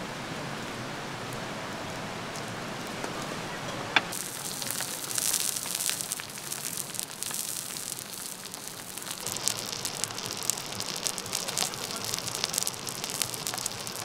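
Bakdae (tonguefish) fillets sizzling and crackling in oil on a hot griddle, with many small sharp pops, starting after a sharp click about four seconds in. Before that, only a steady low hiss.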